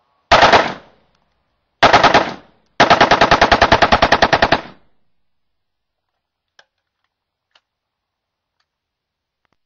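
Unsuppressed 5.45 short-barreled rifle firing on full auto: two short bursts, then a long burst of about twenty rounds at roughly ten shots a second.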